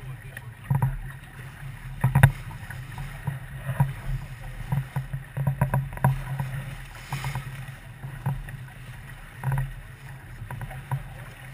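Sounds aboard a boat under way: irregular knocks and slaps over a steady low hum, the sharpest knock a little after two seconds in.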